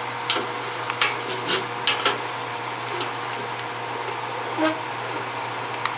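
Wooden spoon stirring wort in an aluminium brew pot, with scattered light knocks of the spoon against the pot, over a steady low hum.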